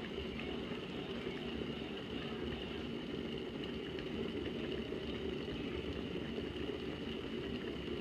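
Water at a steady rolling boil in a Hamilton Beach glass cordless electric kettle: constant bubbling with a faint steady high tone over it. The kettle keeps boiling and won't shut off, a failure of its automatic shut-off.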